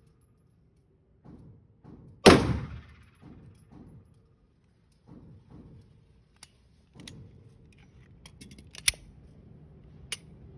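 A single 9mm shot from a Glock 19X pistol about two seconds in, ringing off slowly, among fainter low thuds. A few sharp clicks and rattles follow near the end.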